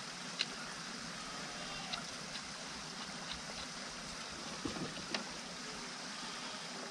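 A few small sharp clicks and rattles of wire leads and clips being handled and attached at a 12-volt battery's terminals, over a steady outdoor background hiss.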